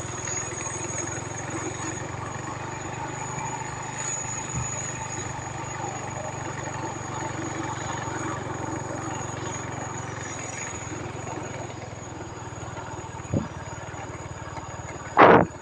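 Small motorcycle engine running steadily while riding at low speed, with a loud thump near the end.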